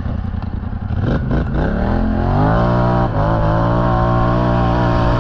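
Motorcycle engine revving up, its pitch rising for about a second and then holding steady.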